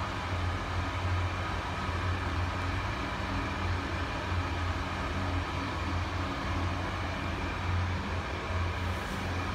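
Steady low mechanical hum under an even rushing hiss, the unbroken ventilation drone of a steam room.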